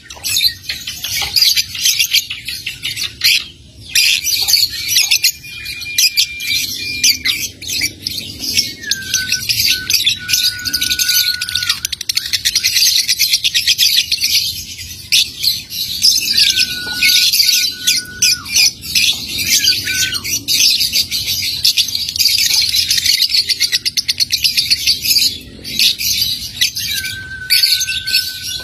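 Young lovebird chattering: a fast, almost unbroken run of dry ticking clicks (the 'ngetik' and 'ngekek' song that keepers prize), broken by several short, steady whistled notes.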